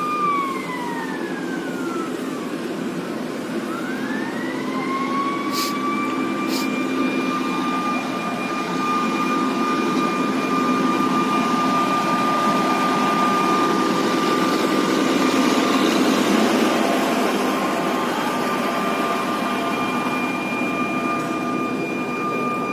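Emergency alarm siren sounding the evacuation alarm for a site drill. It winds down in pitch, swoops back up a few seconds in and then holds one steady wail. Two sharp clicks come shortly after it rises again, over a steady background rumble.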